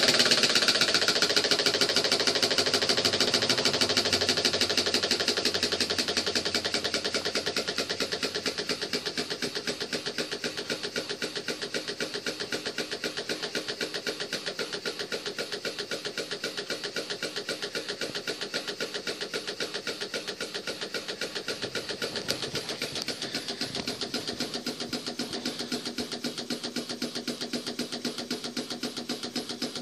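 Small prototype horizontal steam engine, its valve gear worked by the crosshead, running fast with a rapid, even exhaust beat. It is loudest at first, eases off over the first several seconds, then holds steady.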